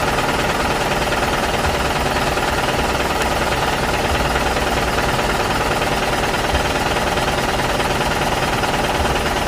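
A motor running steadily with a fast, continuous rattling chatter that does not let up.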